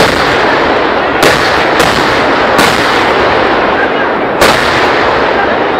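Kerala vedikkettu fireworks barrage: a continuous dense crackle of exploding firecrackers, with about five heavier booming bangs standing out, one at the start, two between one and two seconds in, one near two and a half seconds and one about four and a half seconds in.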